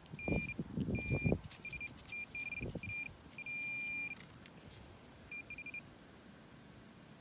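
Metal detector sounding its target tone in a run of steady high beeps of varying length, with one longer beep near four seconds in, signalling buried metal in the hole. A digging tool scrapes and thumps into the soil in the first second and a half and once more near three seconds.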